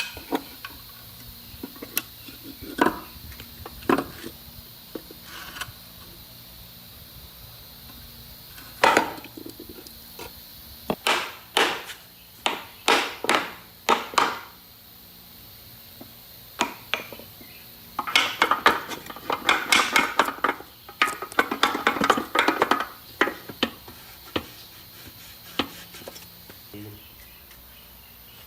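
Hand work on metal machine parts: scattered knocks and clinks, then a few longer scraping strokes, and a busy stretch of rapid clattering and scraping about two-thirds of the way through.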